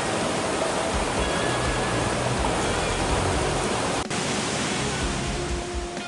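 Waterfall running: a steady rush of falling water, with faint music underneath and a brief break about four seconds in.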